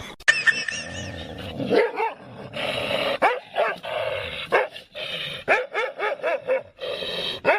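A dog barking and yipping in a quick run of short, high calls, several a second for much of the time.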